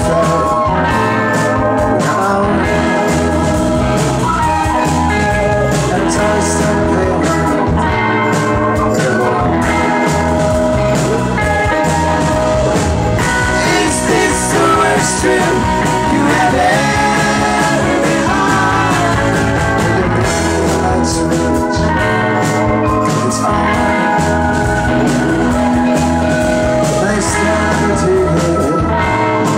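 Rock band playing live, with electric guitar, electric bass and drum kit, and a man singing lead vocals over them.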